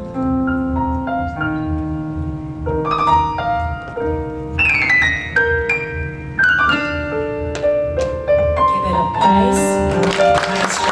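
Music: a piano or keyboard plays an instrumental passage of a song, in separate ringing notes over a steady low pulse. Near the end, a wash of hiss-like noise comes in over the notes.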